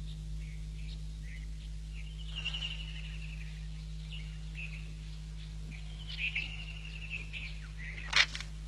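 Bird chirps on a cartoon soundtrack: scattered short chirps and two longer trills, over a steady low hum. A brief, louder harsh sound comes near the end.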